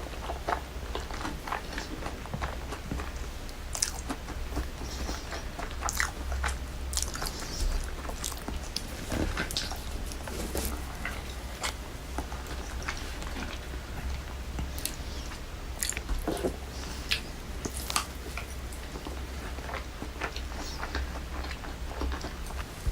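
Close-miked biting and chewing of crispy fried chicken karaage: crunches and wet chewing at irregular intervals, over a steady low hum.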